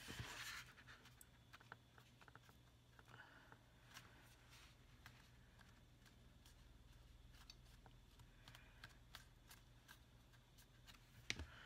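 Near silence: faint rustles and small taps of cardstock cut-outs being handled and pressed together, the rustle slightly stronger at the start, over a low steady hum.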